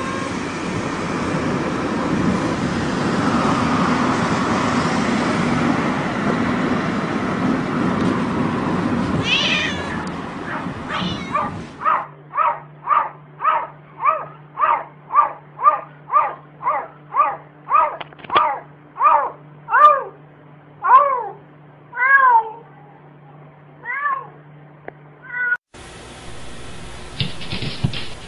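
Domestic cat meowing over steady car noise, then a cat giving a fast run of short, clipped meows, a little over two a second, that slows into a few longer drawn-out meows.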